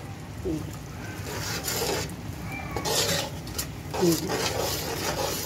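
Metal spatula stirring and scraping a thick spiced tomato-and-yogurt masala against the sides of an aluminium pot, in several rasping strokes.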